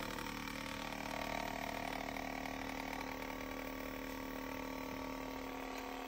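Handheld percussion massage gun running: a steady motor hum with a rapid pulsing as its head hammers against a dog's body.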